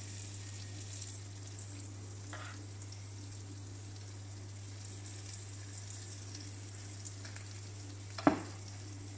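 Potato blini batter sizzling steadily in hot butter in a frying pan, over a steady low hum. A faint tap a little over two seconds in, and a sharp clink of the metal spoon against the steel saucepan of batter near the end.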